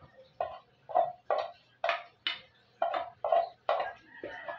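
Metal spoon scraping and knocking against the inside of an aluminium cooking pot as cooked rice is scooped out: a sharp scrape-knock with a brief ring, about twice a second.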